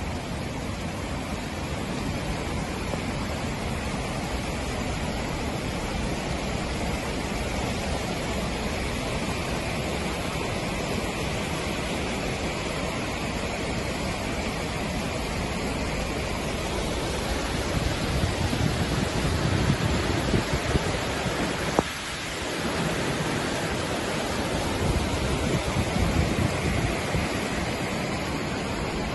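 Floodwater rushing down a paved street as a steady, loud wash of noise, swelling into heavier low rumbling for a few seconds about two-thirds through and again near the end. A single sharp click sounds just before the second swell, with a brief drop in level.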